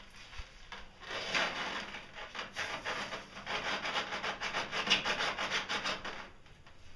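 A hand rubbing wet mortar back and forth over ceramic tiles, in quick scrubbing strokes at about five or six a second. It starts about a second in and stops near the end.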